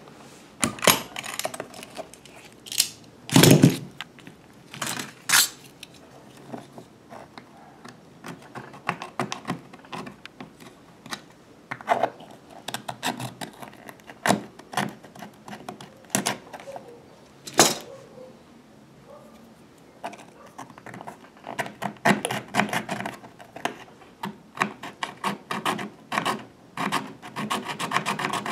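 Hand work on a short piece of PVC pipe: scattered knocks and clicks of handling on a workbench, with one loud knock about three seconds in, then runs of short scraping strokes as a thin blade trims the pipe's cut edge, thickest in the last few seconds.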